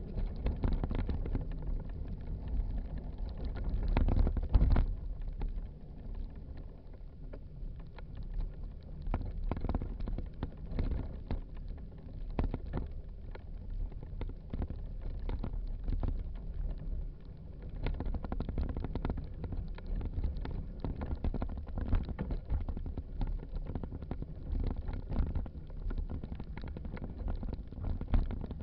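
Low wind rumble on the microphone of a moving trail-mounted camera, with frequent knocks and rattles as it jolts over a rough dirt path. A louder burst of rumble comes about four seconds in.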